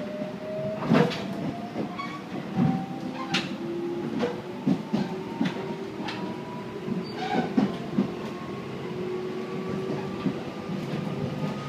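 Traction motors of a Tobu 8000-series electric car (MoHa 8549), heard from inside the car, whining in two tones that rise slowly as the train accelerates at low speed. Sharp wheel-over-rail-joint knocks come about every second. This car is noted for an extra, lower-pitched motor sound under acceleration in the mid-speed range, on top of the usual 8000-series motor sound.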